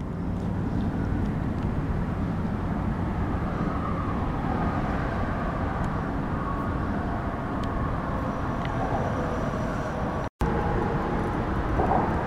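Steady low rumble of vehicle traffic on the highway bridge, with a brief dropout about ten seconds in where the audio cuts.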